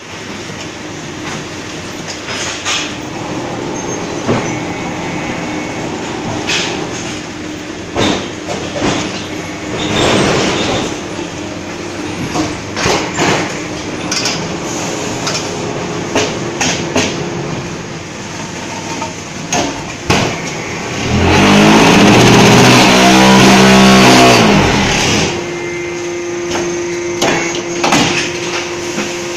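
Concrete paver brick machine running: a steady machine hum with repeated metallic clanks and knocks from the moulding cycle. Near the end a much louder vibrating roar lasts about four seconds, falling in pitch as it stops, typical of the mould vibrators compacting the bricks.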